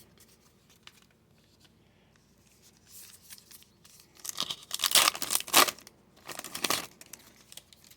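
Crinkling and tearing of a foil baseball-card pack wrapper being handled, in a few bursts starting about three seconds in and loudest around the middle.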